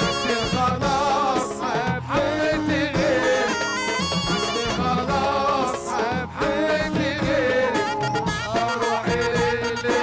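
Egyptian Saidi folk music played live by a band. A reedy, wavering wind melody rides over drums, keyboard and bass.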